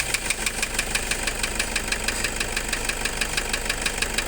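Toyota Kijang Innova diesel engine idling just after starting, with an even, fast, rough knocking clatter of several beats a second. This is the harsh engine noise being diagnosed.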